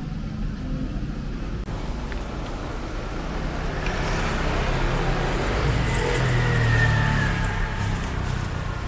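Street traffic running steadily, with a motor vehicle passing close. Its engine and a slowly falling whine are loudest about two-thirds of the way through, then fade.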